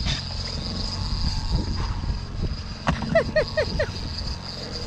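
Fishing boat's motor running steadily, a low rumble under a constant thin high whine, with a quick run of four short falling squeaks about three seconds in.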